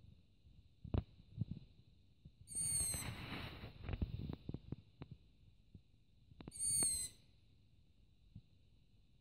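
Juvenile long-eared owl giving its high, squeaky begging call twice, about four seconds apart, calling to be fed. A few low knocks in between.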